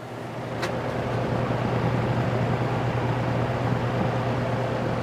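Early-1960s GE F15W13 box fan running on medium speed: a steady hum from its shaded-pole motor under the rush of air from the blades. The fan is still slowly gaining speed on medium, and the sound grows a little louder in the first second.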